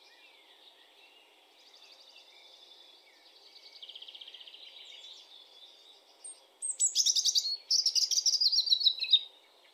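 European robin singing: soft, faint trilling phrases in the first half, then a loud phrase of rapid, high trills and thin piping notes from about two-thirds of the way in.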